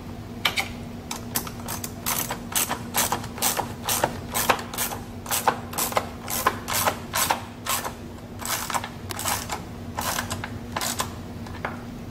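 Hand ratchet wrench clicking in short uneven runs, about three clicks a second, as a socket tightens the mounting bolt of a new coolant reservoir.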